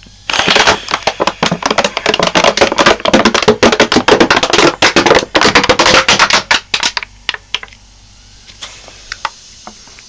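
A crushed plastic drinks bottle crackling and popping loudly as a refrigerator compressor pumps air back into it, with the compressor's low hum underneath. The crackling stops about seven seconds in, leaving the hum and a few last clicks.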